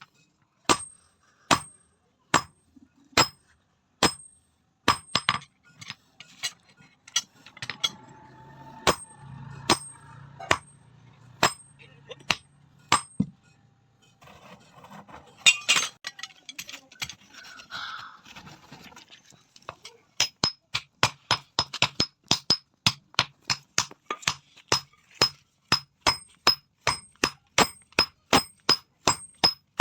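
Blacksmith's hand hammer striking metal on an anvil while forging, each blow with a bright ringing clink. The blows come about one a second at first, give way to softer irregular knocks and a low hum, then from about twenty seconds in a fast run of about three a second.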